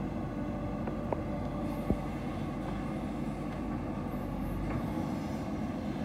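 JCB backhoe loader's diesel engine running steadily as the backhoe arm works the soil, with two sharp knocks about one and two seconds in.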